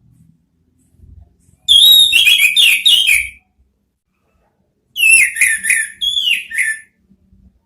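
Orange-headed thrush singing: two loud phrases of quick, falling whistled notes, a few seconds apart.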